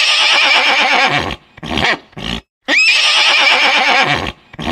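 Horse whinnying twice, each a long wavering neigh of about a second and a half that starts with a quick rise in pitch, each followed by short breathy sounds.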